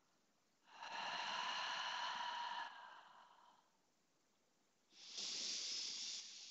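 A woman breathing audibly and deeply during a slow stretch: one long breath starting about a second in, then a second about five seconds in.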